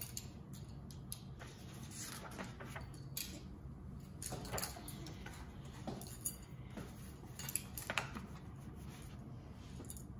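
Faint handling sounds of a picture book on a glass tabletop: a few scattered light clicks and taps as pages are turned, with metal bangles clinking against the glass.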